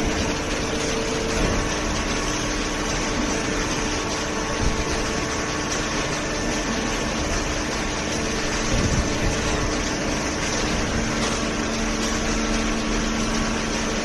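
Horizontal waste-paper baler running with its inclined feed conveyor: a steady machine hum with a few held low tones, and a couple of brief knocks about a third and two thirds of the way through.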